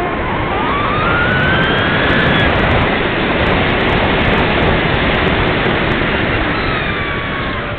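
Airflow rushing past an RC glider's wing-mounted camera, with the whine of the Parkzone Radian Pro's electric motor and propeller rising in pitch as it powers up at the start, then falling away near the end as it is throttled back.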